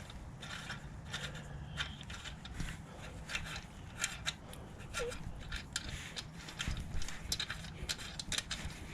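Irregular light clicks and taps with faint scraping, several a second: small parts, such as motorcycle swingarm spools and their hardware, being handled.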